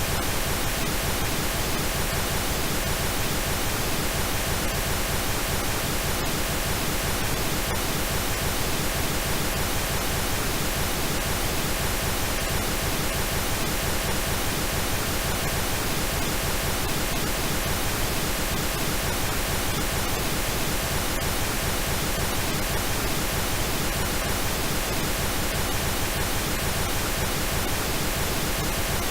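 Steady synthetic pink noise: an even, unchanging hiss spread across the whole range, with no events.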